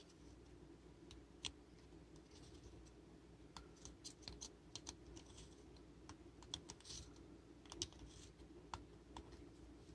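Near silence with faint, scattered clicks and scrapes of small flashlight parts being handled, as the metal retaining nut on the flashlight's head is threaded back on by hand.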